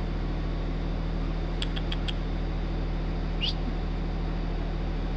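Steady low mechanical hum, with four quick faint clicks about two seconds in and one short rising squeak about three and a half seconds in.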